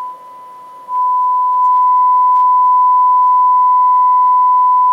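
Steady 1,000 Hz test tone played through the Luxman R-5030 receiver's amplifier as its balance control is turned. The tone drops sharply for most of a second near the start, then comes back and holds steady.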